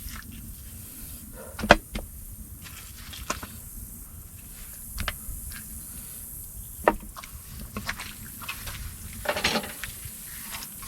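Scattered knocks and clunks of camping gear being handled and put away, one every second or two. The sharpest knock comes about two seconds in, over a steady low background noise.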